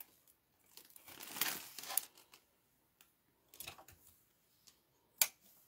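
Crafting supplies rustling and crinkling in short spells as they are handled, with a single sharp click about five seconds in.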